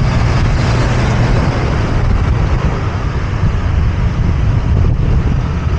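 Steady road traffic noise of scooters, cars and trucks, heard from a bicycle riding among them, with a heavy low rumble.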